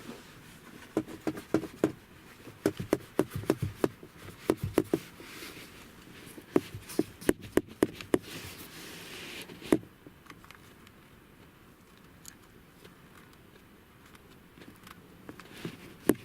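Irregular sharp clicks and knocks of hard parts being handled, coming in quick clusters for the first ten seconds or so, then only a few scattered ones.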